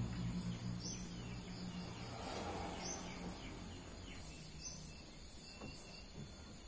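Rural outdoor background: a steady high-pitched drone, with short high chirps about every two seconds. A low steady hum runs through the first three seconds or so, then stops.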